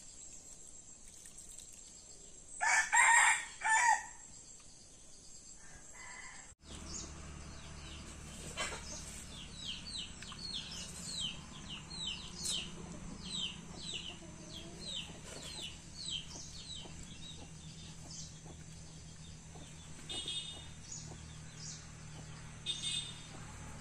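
A rooster crows loudly about three seconds in. Later a bird calls over and over with short, high, falling chirps, about two a second.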